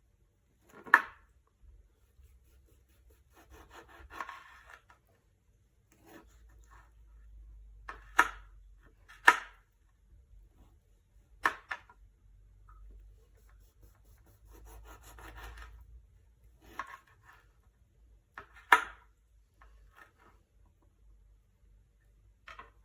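A knife slicing a lemon on a cutting board. The blade makes soft scraping and sawing sounds through the fruit, and several sharp knocks a few seconds apart as it meets the board.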